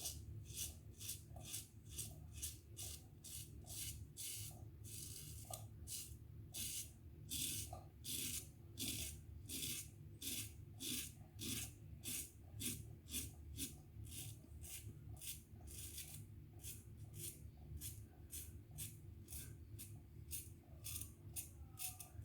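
GEM Featherweight single-edge safety razor scraping through lathered stubble in short, quick strokes, about two a second, on the final pass. The blade is starting to dull.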